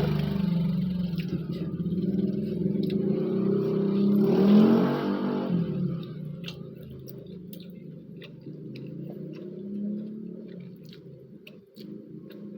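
Motorcycle engine running loud, revving up with a rise in pitch about four to five seconds in, then fading away. Faint short clicks of eating follow.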